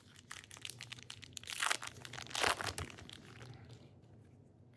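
A trading-card pack wrapper being torn open and crinkled by hand, with the crinkling loudest in the middle and fading out near the end.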